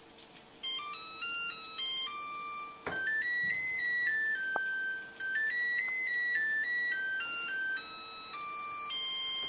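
An LG electric range's timer-end alert sings a short electronic melody of pure beeping notes that step up and down in pitch, starting about half a second in. It signals that the oven's kitchen timer has run out.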